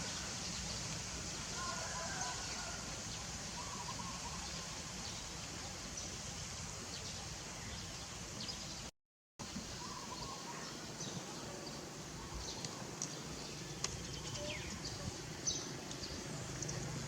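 Quiet outdoor background with faint, scattered chirps and brief high clicks. The sound cuts out completely for about half a second around nine seconds in.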